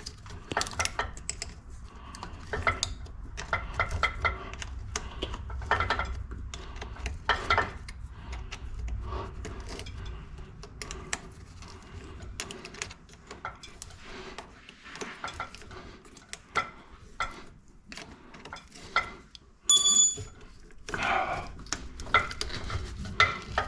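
A wrench and hand tools clinking, tapping and scraping against metal fittings in irregular knocks and clinks while a rusted fitting is worked loose. There is one brief, bright ringing clink about twenty seconds in.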